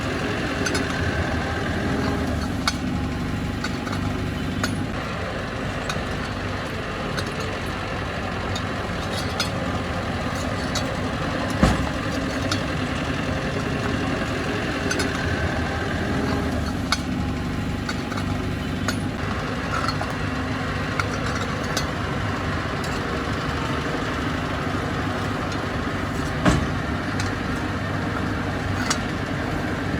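Heavy diesel earthmoving machinery running steadily, with scattered metallic clicks and two louder clanks, one about twelve seconds in and one near the end.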